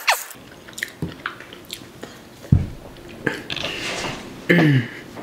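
A person chewing and swallowing a last mouthful of fried rice, with wet mouth clicks and smacks. There is a dull thump about halfway through and a short, low vocal grunt near the end.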